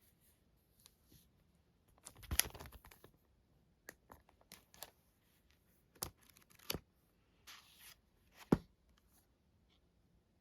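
Packaging being torn open and handled: intermittent tearing and crinkling rustles with a few sharp taps, the loudest near the middle and near the end, then quiet for the last second or so.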